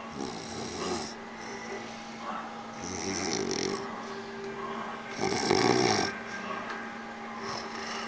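Snoring, with a long snore about every two and a half seconds; the loudest comes a little past the middle.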